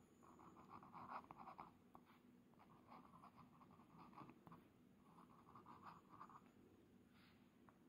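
Glass dip-pen nib scratching across a paper card while writing in cursive: quiet clusters of short strokes with brief gaps between letters, and a longer pause near the end.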